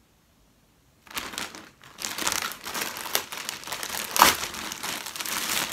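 Plastic packaging bag being pulled open by hand, crinkling and rustling from about a second in, with one louder crackle a little past four seconds.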